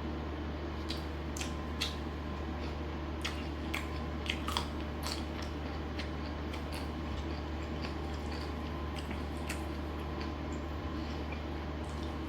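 A person biting and chewing food close to the microphone: scattered short crunches and clicks, thickest in the first five seconds, over a steady low hum.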